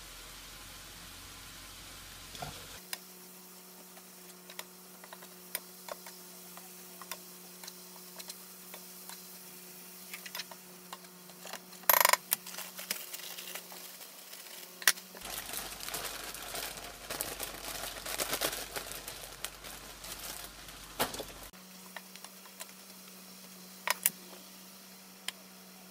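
Stir-fry vegetables sizzling in a frying pan while a wooden spatula stirs them, with scattered knocks and scrapes of the spatula against the pan. The sizzle is strongest in a stretch past the middle, and the sharpest knock comes about halfway through.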